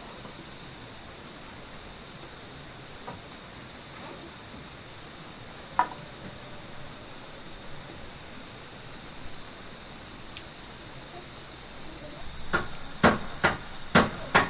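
A steady, high, pulsing insect chorus shrills throughout. There is a single knock about six seconds in. Near the end comes a run of sharp knocks, about two a second, typical of work on wood.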